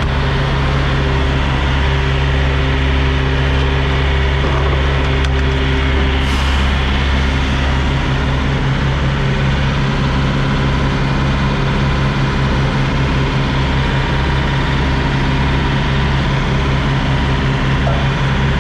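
Kenworth W900 semi truck's diesel engine idling steadily with an even low pulse, and a brief hiss about six seconds in.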